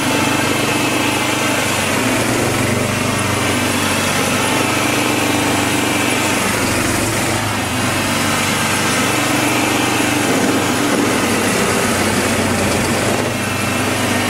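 Small petrol engine of a MARKO two-wheel tractor running steadily under load, driving a belt-driven snow blower attachment that is throwing snow.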